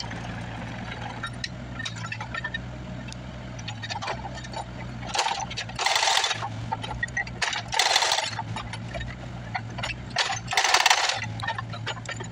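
Bobcat 331 mini excavator's diesel engine running steadily while its hydraulic rock hammer works at a concrete slab, with metallic clinks and clatter throughout. Three louder bursts of hammering come about halfway through, a couple of seconds later, and near the end.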